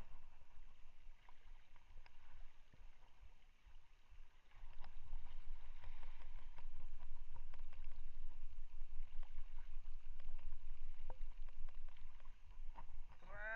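Water lapping and splashing against a small boat, with scattered light clicks and taps. From about four seconds in, a louder gusty low rumble of wind on the microphone sets in.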